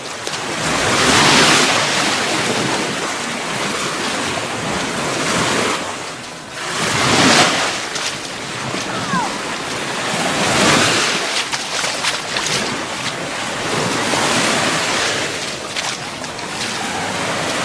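Gulf of Mexico surf breaking and washing up the beach, swelling and ebbing every few seconds, with the biggest wash about seven seconds in.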